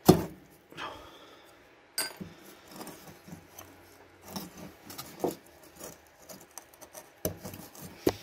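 Light metallic clicks, knocks and scrapes as a corroded, nickel-plated aluminium CPU heatsink is worked free of its sheet-metal shroud by hand. The sharpest knock comes right at the start, with scattered smaller clicks after it.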